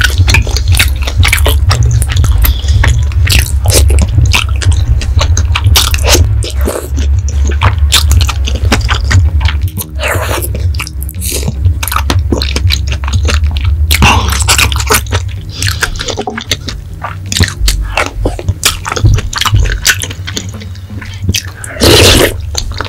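Close-miked eating: steady wet chewing and biting with many small clicks and smacks, broken by a few slurps of spicy tteokbokki noodles and sauce, the loudest near the end.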